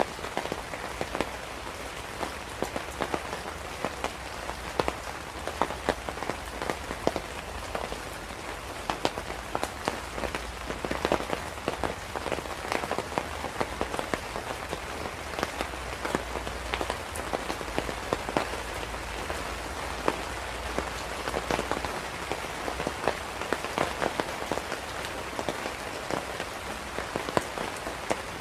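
Steady rain falling, with many close, sharp drop hits pattering over a continuous hiss and a low rumble underneath.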